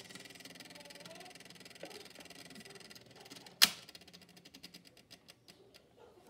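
RCA Victor tube record player switched off at its front control knob: a single sharp click, followed by a quick run of faint, evenly spaced ticks that die away.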